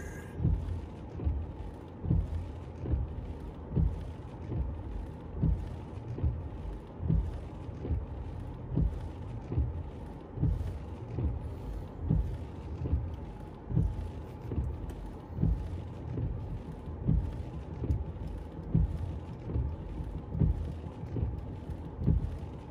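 A parked car's engine idling with a steady low hum, and soft low thumps repeating roughly once a second.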